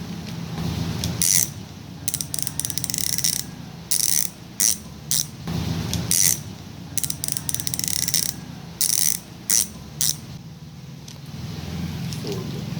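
Sword bicycle hub's six-pawl freehub ratcheting: super loud, high buzzing clicks in about a dozen short bursts of uneven length as the wheel freewheels, stopping about ten seconds in.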